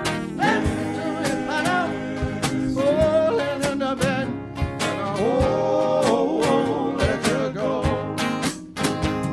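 Live soul band playing: acoustic guitar strumming over a steady beat, with wordless singing that holds several long notes.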